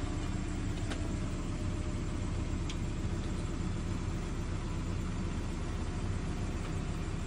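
Steady low rumble with a few faint taps, which fit a quad cane's rubber feet being set down on concrete steps.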